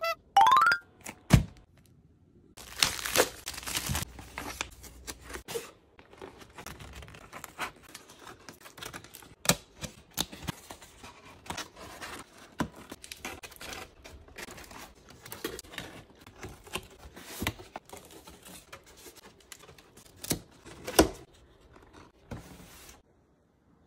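Corrugated cardboard being folded and slotted together by hand to assemble a cat house: scattered sharp clicks, scrapes and crinkly rustles of flaps and tabs. It opens with a short rising tone in the first second.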